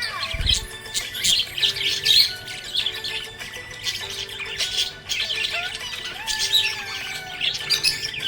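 Budgerigars chirping and squawking in rapid, repeated calls throughout, over background music with steady held tones. A brief low thump about half a second in.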